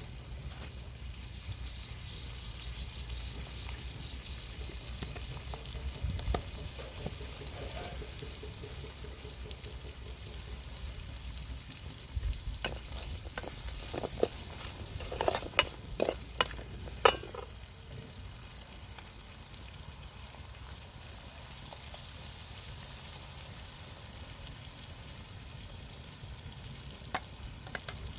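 Food sizzling steadily as it fries in a pan, with a run of sharp clicks and knocks about halfway through as it is stirred with a spoon.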